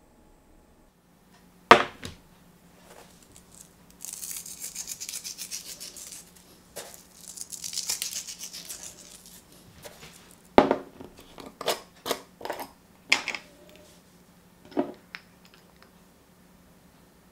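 Sea salt flakes crumbled between fingers over raw chicken breasts in a small metal tray: two spells of rapid crackly ticking. Then a run of sharp knocks and clicks as a measuring spoon and spice jar are handled. A single sharp click comes shortly before the crackling.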